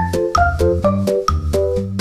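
Instrumental background music: a quick run of pitched notes over a sustained bass line.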